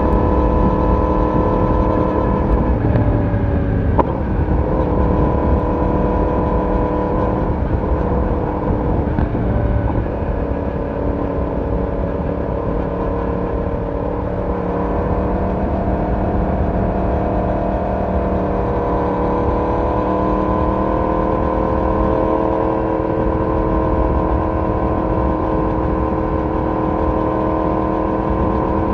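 Yamaha YZF-R1 inline-four motorcycle running at road speed, its exhaust note dipping briefly and changing pitch about four seconds in. The note then settles into a steady drone that rises slowly in pitch as the bike accelerates.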